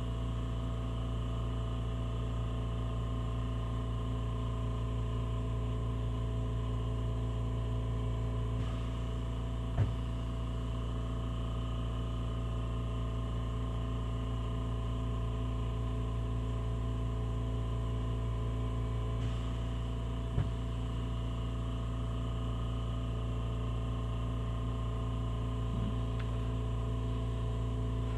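Small oxy-propane torch burning with a steady hum while its flame plays on a sample of DIY Starlite heat-shield material; two faint clicks sound about ten and about twenty seconds in.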